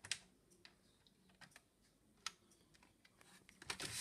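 Scattered faint plastic clicks and taps as the page-turning mechanism of a toy playset's reading table is worked by hand, the sharpest about two seconds in. Near the end, louder rustling and knocks of handling.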